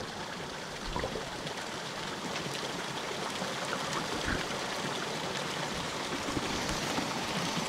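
Steady rushing water noise with a few faint ticks, muffled as heard by a camera under the surface of a trout pond.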